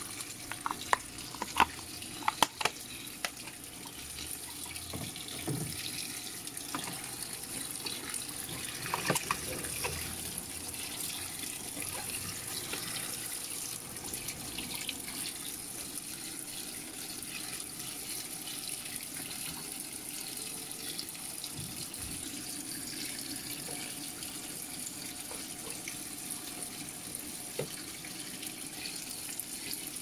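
Panasonic top-load washing machine filling its drum with water: a steady rush of water. A few sharp plastic clicks sound in the first three seconds as the lint filter is handled.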